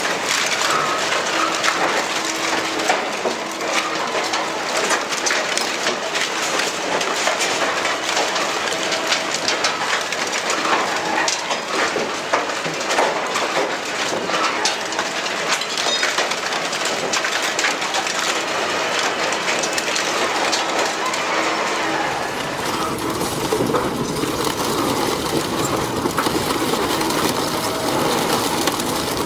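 Industrial twin-shaft shredder running under load, a dense clatter and crackle of scrap metal being torn apart and dropping from the discharge conveyor, over a steady drone. About two-thirds of the way in the sound changes to a closer, fuller grinding as the rotor shafts chew through a car body shell.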